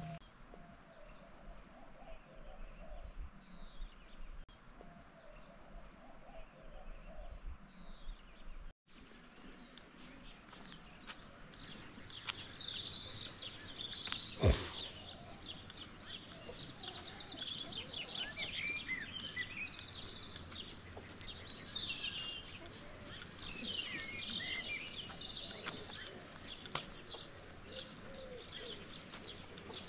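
Many small birds chirping and singing, the calls growing busier and denser through the second half. A single short thump about halfway through is the loudest moment.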